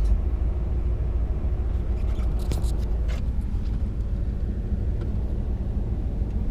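Vehicle driving: a steady low rumble of engine and road noise, with a few faint ticks about two to three seconds in.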